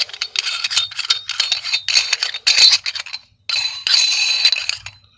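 Loose metal strut parts clinking and rattling as they are handled and taken apart, in a string of bursts with a short break about three seconds in.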